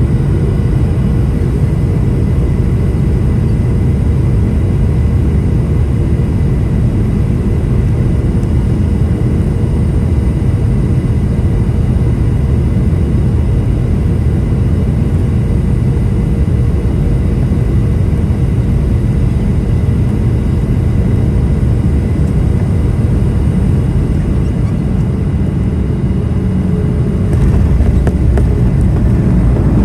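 Cabin noise inside a Boeing 737-700 on approach: the steady low rumble of its CFM56-7B engines and airflow, with a steady whine over it. About 27 seconds in the noise steps up and stays louder.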